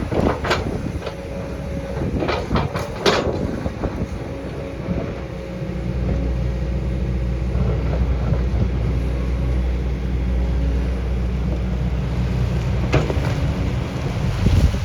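Excavator's diesel engine running under load, with sharp knocks of the bucket against rock in the first few seconds and again near the end. The engine grows louder from about six seconds in as it works harder.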